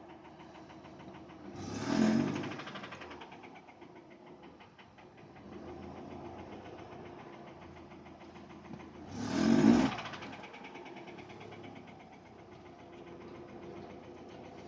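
Subaru EJ204 flat-four idling with a rapid knock, revved briefly twice, a few seconds apart. The knock is rod knock from a spun connecting-rod bearing on cylinder one.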